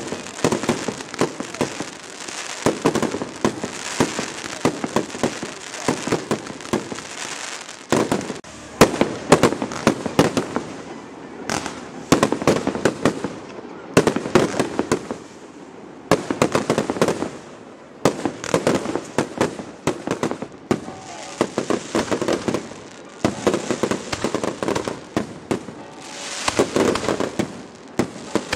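Aerial fireworks display: shells bursting with sharp bangs and dense crackling, coming in rapid volleys separated by short lulls.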